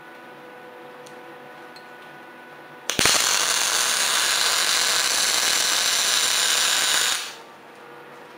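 Electric welding arc running a bead on steel: starts abruptly about three seconds in, burns loud and steady for about four seconds, then stops. Low, steady shop hum before and after.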